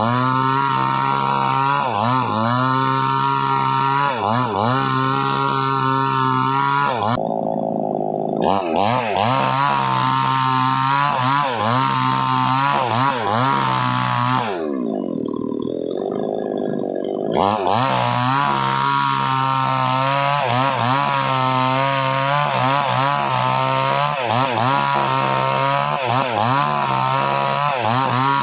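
Small gasoline two-stroke chainsaw running at high revs and cutting wood, its pitch dipping again and again as the chain bogs under load. Twice, about a third and about halfway in, the engine drops back in pitch for a second or two and then revs up again.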